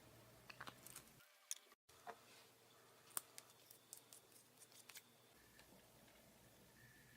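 Faint, scattered clicks and light taps over near silence, most of them in the first five seconds.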